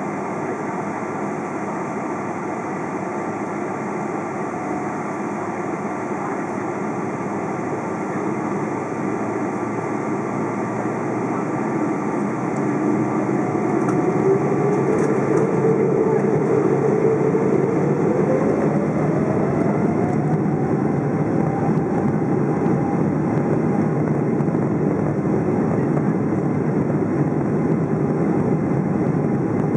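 Cabin noise inside a Boeing 777-200 as its jet engines spool up for takeoff. A steady rumble grows louder about twelve seconds in, with a whine rising in pitch over several seconds and then holding steady.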